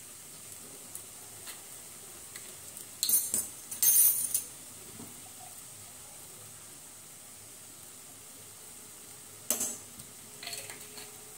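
Sauce poured onto noodles in a hot frying pan sizzles in two short bursts, about three and four seconds in. Near the end a metal spoon clatters sharply into the pan, followed by a few light clicks of bottles and utensils.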